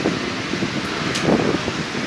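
Storm wind and rain as a steady hiss, with gusts buffeting the phone's microphone in irregular low rumbles; a single sharp tick about a second in.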